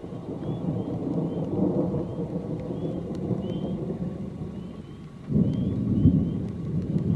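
Thunder rumbling in a long low roll, then a louder peal of thunder breaking in suddenly about five seconds in.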